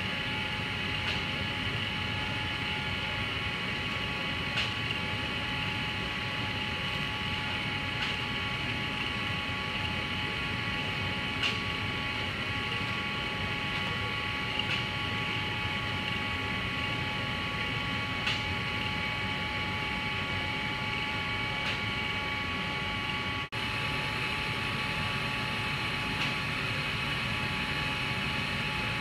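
Steady drone of fiberglass-shop machinery with several constant whine tones, and faint clicks every few seconds. The sound drops out for an instant about three-quarters of the way through, then carries on the same.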